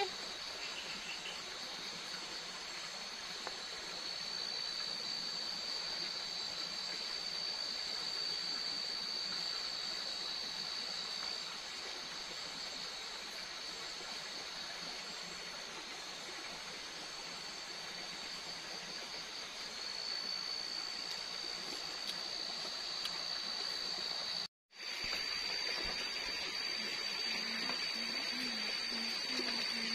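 Night-time forest ambience: an even rush like a stream running, with a steady high-pitched insect drone that fades in and out. The sound drops out for a moment about three-quarters of the way through.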